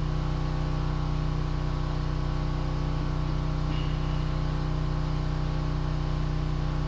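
Steady low machine hum of a running motor or engine, holding an even pitch without change.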